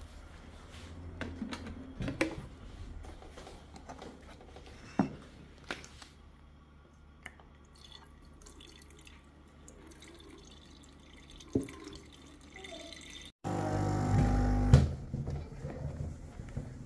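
Water dripping, with a few separate sharp knocks over a steady low hum. Near the end a louder passage cuts in for about a second and a half.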